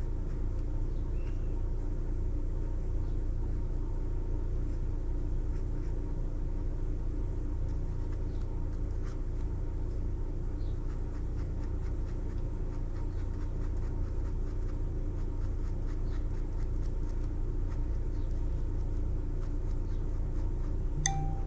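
Black ink pen scratching short hatching strokes on sketchbook paper, as a string of faint ticks over a steady low background hum. A brief low tone sounds near the end.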